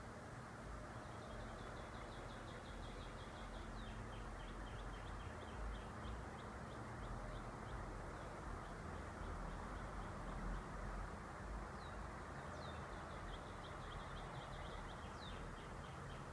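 A bird's rapid chattering series of short high notes, in two spells, with a few quick rising notes. Underneath is a steady low background rumble.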